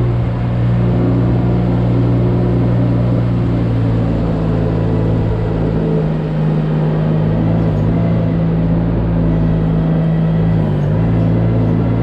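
Compact loader's engine running steadily while it pushes a manure scraper blade along a barn alley: a continuous low hum whose pitch dips briefly about eleven seconds in.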